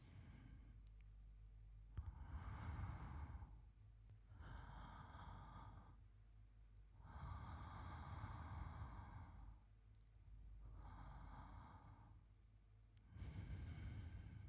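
A man's slow, soft sleeping breaths close to the microphone: five gentle breaths in and out, each lasting a second or two.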